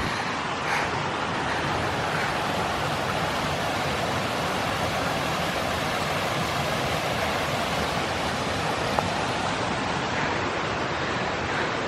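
Steady rushing noise, even and unbroken, with a single faint click about nine seconds in.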